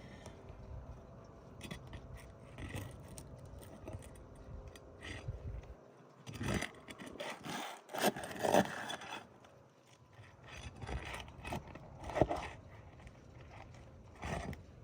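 Shingle bar scraping and prying under roof shingles to work an old shingle and its nails loose, in irregular scrapes and knocks. It is busiest about halfway through, with one sharp knock later on.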